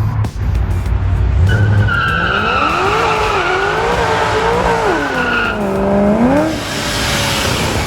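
Chevy SS sedan's V8 revving up and down with the tyres squealing, as in a burnout or hard slide; the squeal stops about five and a half seconds in while the engine note dips and comes back up.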